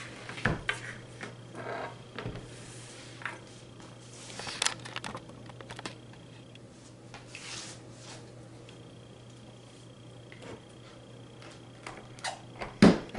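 Plastic clicks and knocks from a Vitamix blender's container and lid being handled, with a loud knock near the end as the container is set onto the motor base.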